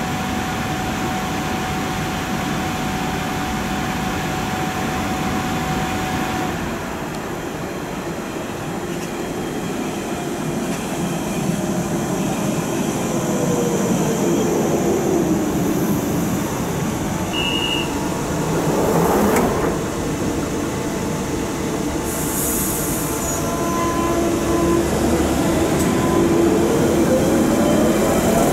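London Underground Central Line 1992 tube stock trains running through the station, with steady wheel-on-rail noise and the whine of the electric traction motors. The whine falls in pitch around the middle as a train slows, then rises near the end as one pulls away close by.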